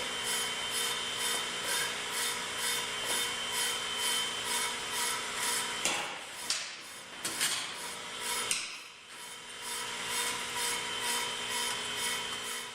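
Pro-Cut on-car brake lathe running and cutting a brake rotor: a steady motor hum under a rhythmic scraping of the cutting tip on the spinning rotor, about two to three times a second. A few knocks come in the middle.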